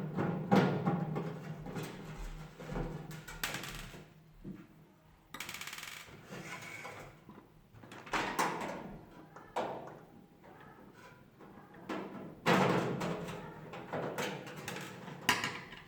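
Irregular knocks and metallic clinks of an electric oven's metal casing and parts being handled while it is taken apart, with a short rasping burst about five seconds in.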